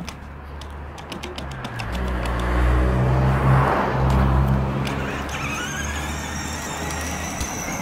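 Motorbike engine sound building to a rev and easing off, with a whine climbing in pitch over the last few seconds.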